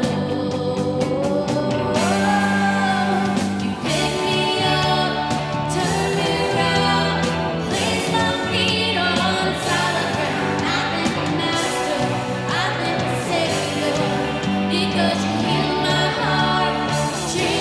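Christian worship music: a band playing with voices singing, steadily throughout.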